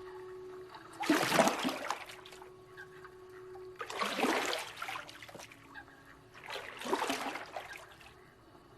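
Water splashing in three separate swells, about three seconds apart.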